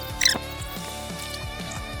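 Background music with held chords over short falling bass notes, with one brief high squeak about a quarter of a second in.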